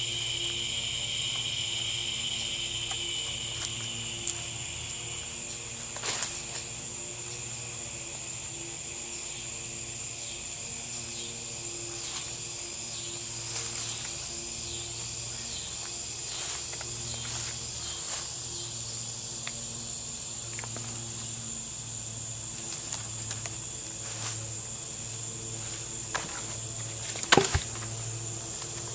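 A steady, high-pitched insect trill, cricket-like, with a second, lower trill that fades out in the first few seconds. Scattered faint clicks, and a sharp click near the end that is the loudest sound.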